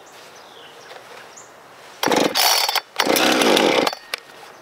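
Husqvarna two-stroke chainsaw being pull-started: two quick pulls of the recoil starter cord about halfway through, each about a second long. The engine turns over without catching.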